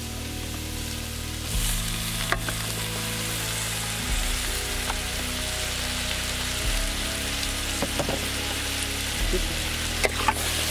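Onions frying in oil in a large metal pot with a steady sizzle, as chopped tomatoes are tipped in, and a few sharp knocks of the utensil against the pot. Soft background music plays underneath, its low chords changing every couple of seconds.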